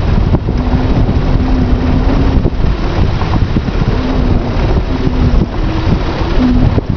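Strong wind buffeting the microphone, over the faint hum of a small homemade wind turbine's spinning blades and DC-motor generator, the hum coming and going and shifting in pitch with the gusts.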